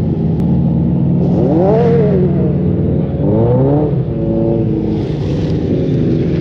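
Autocross race car engines running loud under a steady drone, with an engine pitch that climbs and drops twice, first about a second and a half in and again about three seconds in.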